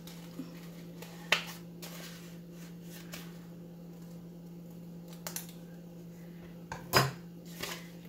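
Scissors snipping through folded paper in a few short, sharp snips, with a louder click near the end, over a steady low hum.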